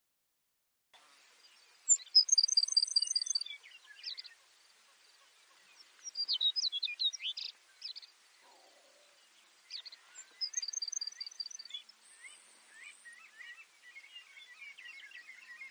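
Baird's sparrow singing three times: each song is a quick run of short, high notes followed by a buzzy trill. Fainter, lower twittering from other birds comes in near the end.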